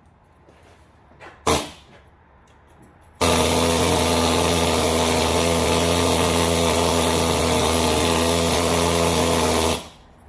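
Pneumatic needle scaler running, cleaning rust off the wheel-bearing mounting area: a short blip about a second and a half in, then a steady loud rattling run of about six and a half seconds that starts and stops abruptly.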